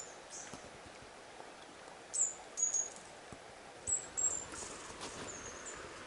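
Small birds chirping: short, high-pitched notes, some sliding slightly in pitch, repeated every second or so over the faint steady rush of the river.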